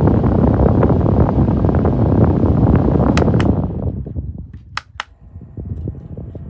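Small battery-powered desk fan blowing hard onto the microphone with a buffeting rush of air, which falls away sharply about three and a half seconds in. Sharp clicks come around that drop and again about a second later, after which the fan runs much more quietly with a faint steady motor whine.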